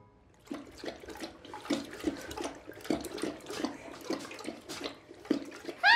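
Great Dane lapping water from a toilet bowl: a run of quick, splashy laps, roughly three a second.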